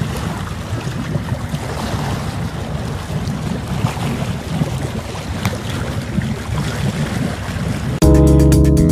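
Wind rumbling on the microphone over open water, an uneven low rumble with a hiss of water. About eight seconds in, music cuts in abruptly.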